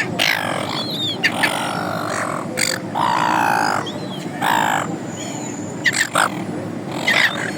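Several gulls calling, one short harsh squawk after another, over a steady low background noise.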